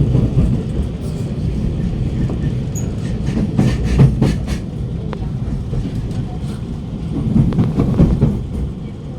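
Alstom Movia R151 metro train running at speed, heard from inside the carriage: a steady low rumble, with a quick run of wheel clicks over the track near the middle and again near the end.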